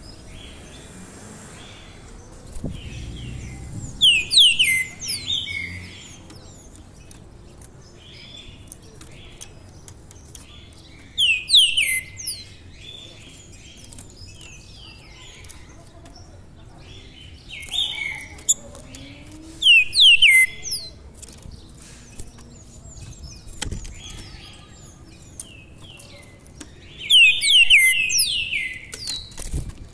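Caged songbird singing four phrases, roughly every seven seconds, each a quick run of loud notes sliding downward, with softer chirps between the phrases.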